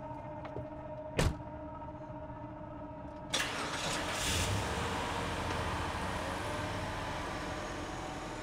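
A car door slams shut about a second in; about two seconds later the car's engine starts abruptly and keeps running steadily.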